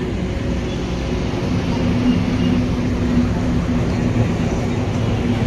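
Sport motorcycle engines running steadily at idle, a low even engine note with no revving.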